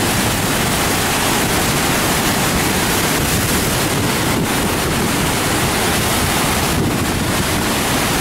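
Water pouring through the Gavins Point Dam spillway at a flood release of about 150,000 cubic feet per second: a loud, steady rushing, with wind buffeting the microphone.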